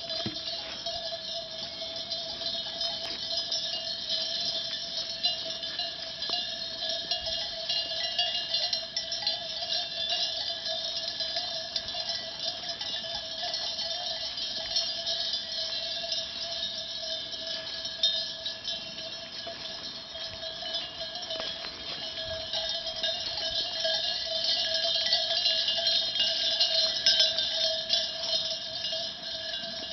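Bells on a flock of sheep clanking and jingling together in a continual ringing, growing louder in the last few seconds.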